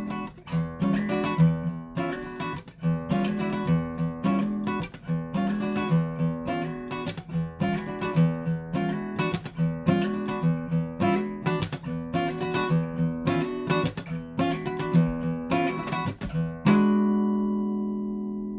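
Background music on acoustic guitar: steady, rhythmic strumming that ends on a single chord left to ring out and fade near the end.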